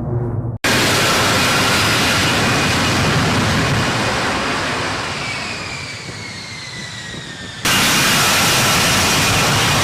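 F-35A Lightning II fighter jet with its single Pratt & Whitney F135 afterburning turbofan, passing loudly. A falling whine runs under the noise as the jet goes by and fades. The sound cuts in abruptly less than a second in and cuts again about three-quarters of the way through, back to full jet noise.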